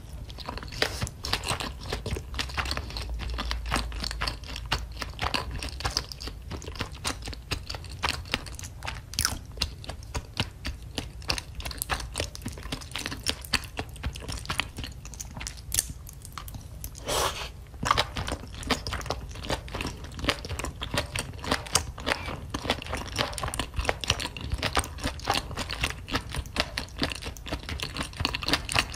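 Close-miked chewing of octopus and rice balls in spicy sauce: a steady run of wet, sticky mouth clicks and smacks, with a louder burst of them a little past halfway.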